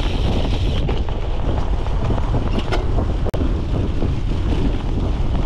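Wind buffeting the microphone of a seat-mounted camera on a cyclocross bike, over a steady low rumble from the bike running across rough ground, with a few faint rattling clicks. The sound drops out for an instant a little past halfway.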